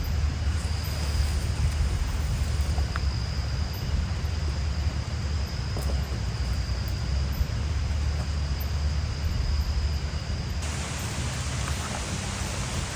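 Steady heavy rain falling in forest, a dense hiss over a deep low rumble, with a faint thin high tone running through it. About eleven seconds in, the hiss turns brighter and sharper, like rain beating on a surface close by.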